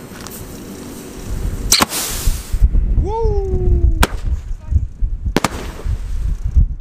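Fireworks going off in a strong wind: a crack and a hiss about two seconds in, then three sharp bangs as the shells burst, about one and a half seconds apart. Wind buffets the microphone throughout, and a falling wail comes just before the first of the three bangs.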